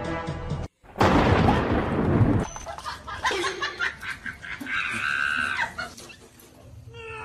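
Music stops with a short break, then a loud clap of thunder lasting about a second and a half, followed by fainter mixed sounds.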